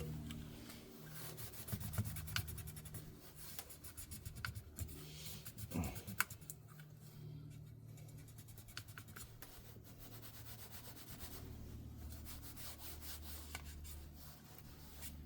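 Quiet rubbing, scratching and light clicks from hands working on an inkjet printhead at a bench, over a low steady hum. A short sound that rises and falls in pitch comes about six seconds in.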